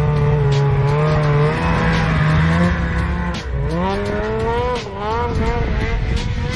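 Snowmobile engine revving in deep snow. It holds a steady pitch for almost three seconds, drops off, then climbs and wavers up and down several times as the throttle is worked.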